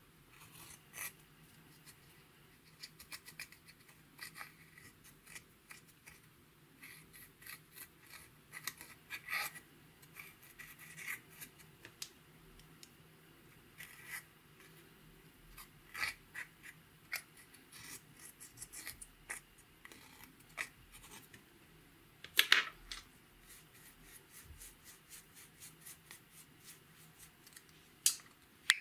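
Pressed eyeshadow being scraped and dug out of a plastic compact's pans with a small pick: dry, irregular scratching and crumbling ticks, with a few louder sharp clicks about two-thirds of the way through and near the end.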